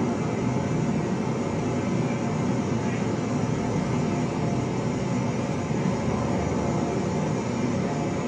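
A waterfall's rushing water, a steady even rush of noise, played from a video through a wall screen's speakers.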